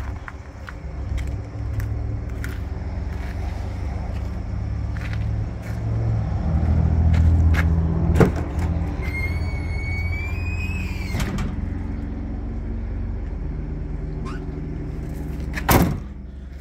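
A vehicle engine idling with a steady low hum that swells louder for a couple of seconds about halfway through. A sharp click comes about halfway, a brief rising whine follows just after, and a louder click comes near the end.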